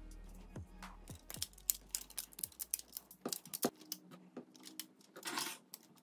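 Rubber bands being stretched and snapped around a smartphone, a run of sharp clicks and snaps with a brief rasp of rubber near the end. Background electronic music fades out over the first few seconds.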